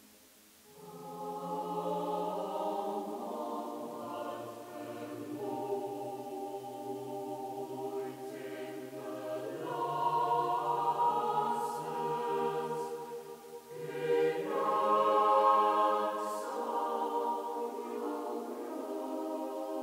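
Slow choral music: voices holding long chords that change every few seconds, swelling about ten seconds in and again near fourteen.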